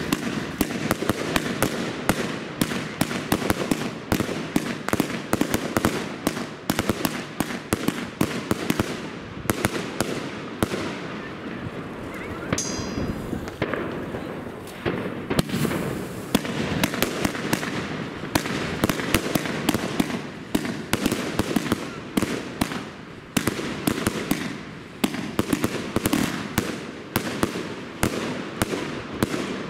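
Pangu Fireworks 'Colorful City' consumer firework cake firing: a rapid run of launch thumps and bursting reports with crackle, several a second. It thins out briefly about a third of the way in, then picks up again.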